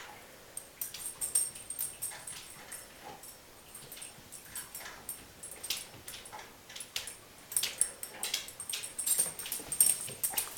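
A border collie's claws clicking and scrabbling on slippery laminate (Pergo) flooring as it struggles for grip. The ticks come irregularly and grow busier and louder in the second half.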